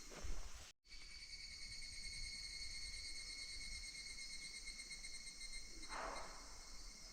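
Evening cicadas (higurashi) calling in a steady chorus of high tones, broken by a short drop-out just under a second in. A brief louder sound comes about six seconds in.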